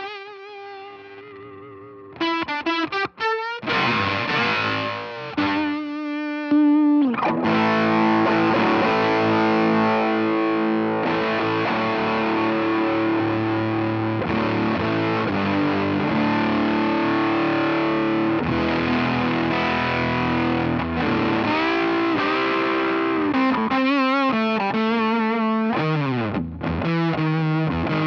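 Electric guitar, a Fender Stratocaster, played through the SVI Sound Fuzz Genetic fuzz pedal into a Walrus Audio ACS1 amp simulator. It opens with short picked notes, then a fuzzed chord rings out and sustains from about seven seconds in. Quicker picked notes return near the end.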